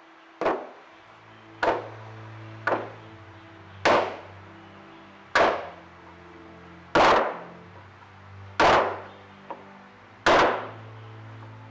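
A block of clay knocked down onto a wooden workbench again and again: eight thuds, a little over a second apart and slowing slightly, with soft background music under them.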